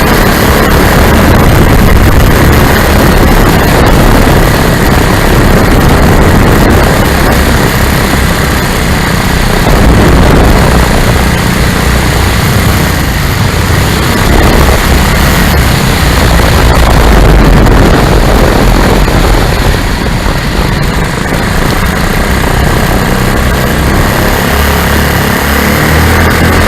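Lazair twin-engine ultralight in flight, its small engines and propellers droning under loud wind rush buffeting the open-cockpit microphone in gusty air.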